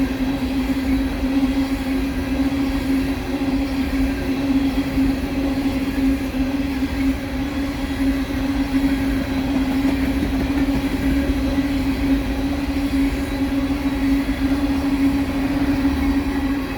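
Empty coal hopper cars of a Norfolk Southern freight train rolling past steadily, a continuous rumble with a steady droning tone running through it.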